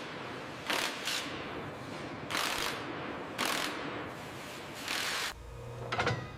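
Mechanical working noise: a steady hiss broken by several harsh, grinding bursts at uneven intervals, then a lower hum with a few clicks near the end.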